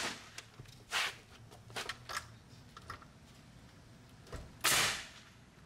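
Pneumatic coil nailer firing nails through a plywood sheathing panel into the wall framing. Several short, sharp shots come at irregular intervals, the loudest about three-quarters of the way through.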